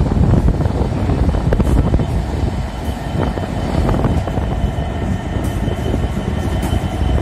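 A Class 66 diesel-electric locomotive's two-stroke EMD V12 engine rumbling as the locomotive rolls slowly past close by. A thin, steady high-pitched wheel squeal comes in about halfway.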